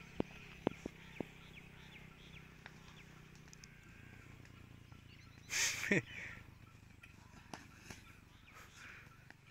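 Rural outdoor ambience with small birds chirping faintly and a few sharp knocks in the first second. A short, loud cry falling in pitch comes about five and a half seconds in.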